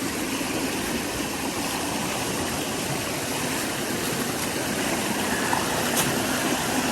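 Mountain creek rushing over rocks, a steady wash of water.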